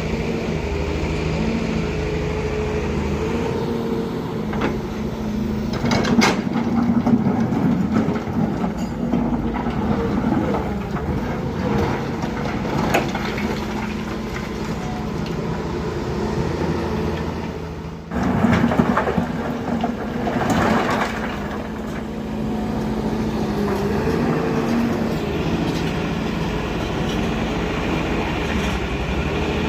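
Heavy diesel engine of an earth-moving machine running, its pitch shifting as it works, with sharp metallic clanks about six and thirteen seconds in. The sound dips and changes abruptly a little after eighteen seconds.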